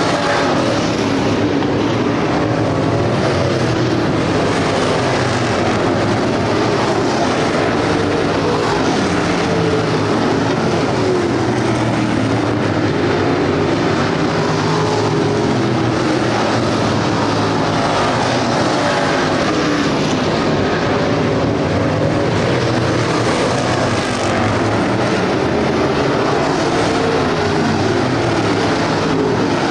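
A field of street stock race cars running at speed on a dirt oval, many engines sounding at once. Their pitch rises and falls as cars pass and move around the track.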